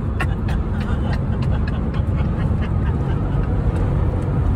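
Steady low road and engine rumble inside a car cabin at highway speed, with short repeated bursts of laughter over it.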